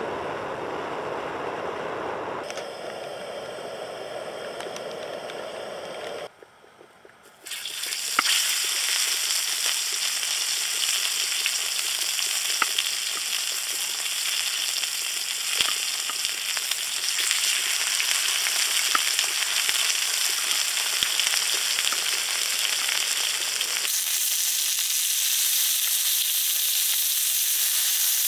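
Camp gas burner flames rushing for the first few seconds. From about seven seconds in, steak sizzles in oil on a griddle pan, a steady crackling hiss with scattered pops and spits.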